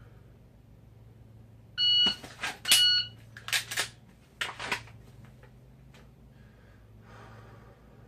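Electronic shot timer beeping twice, a little under a second apart, amid sharp clicks and clothing and holster rustle from a dry-fire pistol draw. A few more rustles and clicks follow over a steady low hum.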